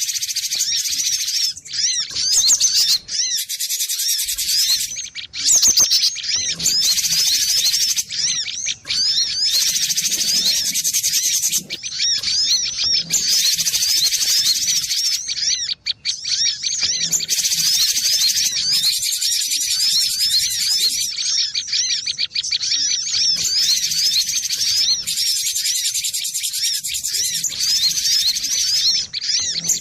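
Cinereous tit (gelatik batu) singing: a fast, unbroken stream of high, repeated chirping notes with only brief pauses.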